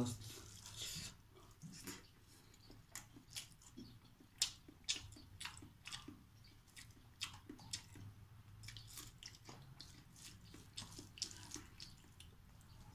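Close-up eating by hand from a metal bowl: fingers squishing and mixing wet food against the bowl, and mouth-smacking and chewing. These come as many short, soft, irregular clicks and smacks.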